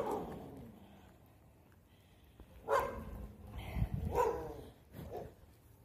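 A dog barking: two sharp barks about a second and a half apart, then a softer one, with a low rumble of wind on the microphone between them.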